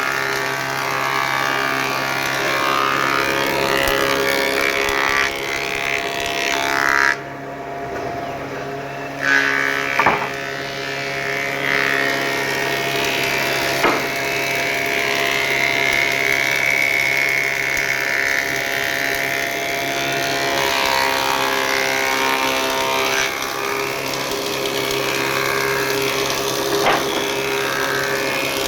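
A machine running steadily with a constant hum, with a few sharp knocks or clicks along the way and a short drop in sound around a third of the way in.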